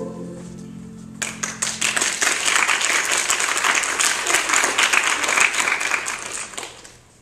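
The held final chord of a song fades out, then a crowd applauds for about six seconds, tapering off near the end.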